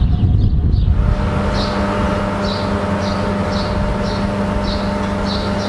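A deep rumble cuts off about a second in. A steady electric hum of several held tones follows, as of an electric train or station equipment, with a short high chirp repeating about twice a second.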